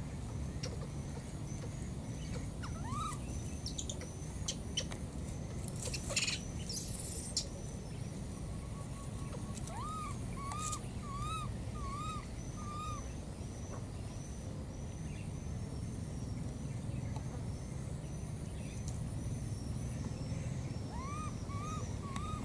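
Baby macaque calling: short, arched, crying calls, one about three seconds in, a run of five in quick succession around ten to thirteen seconds, and three more near the end. A brief rustle of twigs about six seconds in.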